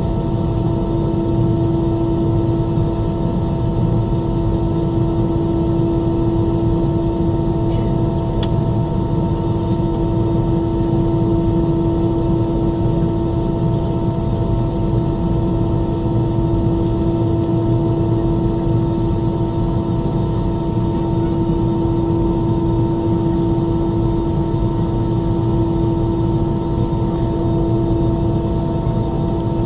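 Airbus A320's CFM56 turbofan engines idling, heard inside the cabin while the airliner holds still on the ground waiting for takeoff: a steady hum with one constant strong tone over a low rumble.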